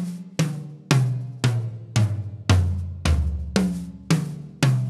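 Seven tom-toms of a Pearl President Deluxe kit with coated Remo Ambassador batter heads at medium tuning, struck one at a time about twice a second from the highest down to the lowest, then starting again from the top. Each hit is a short pitched note, its decay kept short and matched across the toms by felt mufflers lightly touching the heads.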